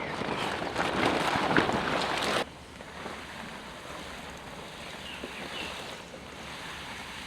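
Heavy rain falling close by, loud and crackly, that cuts off suddenly after about two and a half seconds to a softer, steady rain hiss with a faint bird chirp.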